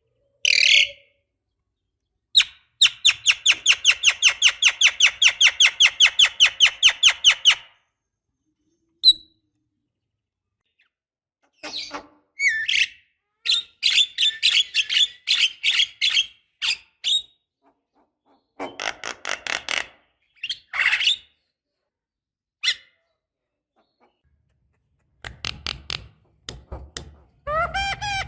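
Javan myna chattering: a fast, even run of sharp repeated notes for about five seconds, then several bursts of harsh squawking chatter with silent gaps between.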